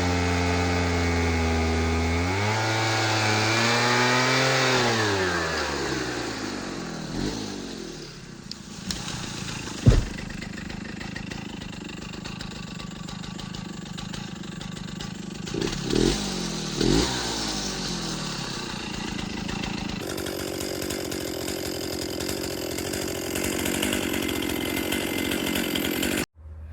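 Two-stroke chainsaw engine running at high speed, revving up briefly and then winding down in pitch over a few seconds. A sharp knock comes about ten seconds in, and there are two short revs later.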